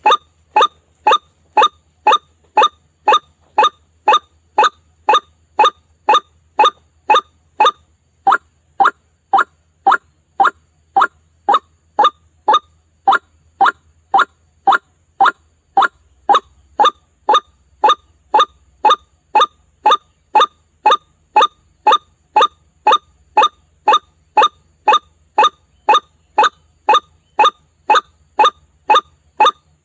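White-breasted waterhen call, a short note repeated evenly about twice a second, with one slightly longer break about eight seconds in. It is a recorded lure call used to draw waterhens in.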